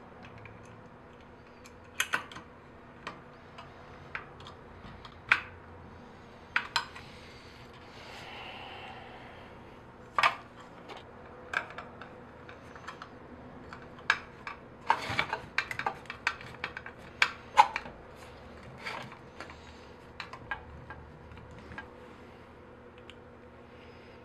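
Irregular sharp clicks and clinks of small metal parts, screws and a screwdriver being handled against an aluminium frame, growing busier past the middle.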